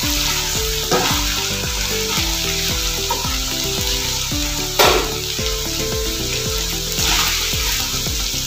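Chopped chicken and vegetables sizzling in a hot non-stick wok as they are stirred and tossed with a slotted spoon, with one louder clatter of the spoon nearly five seconds in.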